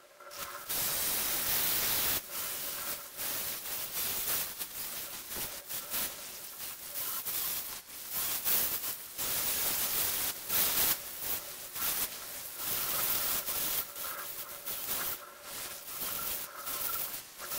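Electric belt file sanding the carved fresh pine, a rough hiss that swells and dips as the tool is pressed on and lifted off the wood.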